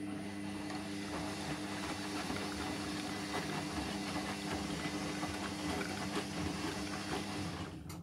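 Hotpoint front-loading washing machine tumbling its drum during a deep rinse: a steady motor hum under water sloshing and splashing through the laundry. The tumble stops abruptly near the end.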